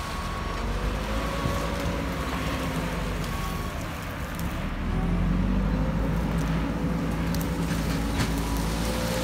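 JCB 4CX backhoe loader's diesel engine running under load while it clears brush, its note slowly rising and falling as the engine works. A few sharp cracks come near the end.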